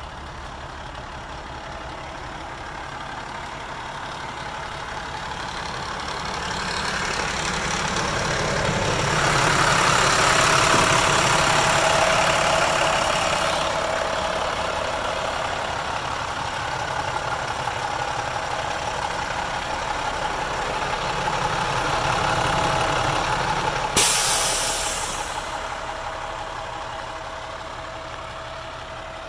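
International DT466 inline-six turbo diesel idling steadily, its level swelling and falling twice. Near the end a sudden sharp hiss of released compressed air breaks in and dies away over a second or two.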